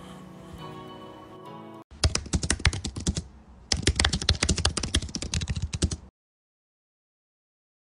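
Soft background music, cut off about two seconds in. Then a computer-keyboard typing sound effect: rapid key clicks in two runs, the first about a second long, the second about two and a half seconds, followed by dead silence.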